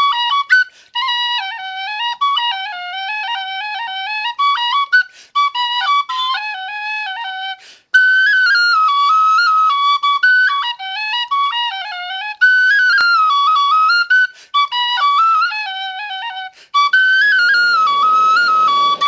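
A melody played on a whistle, with quick note changes and ornaments; it breaks off briefly about eight seconds in and continues in a higher register.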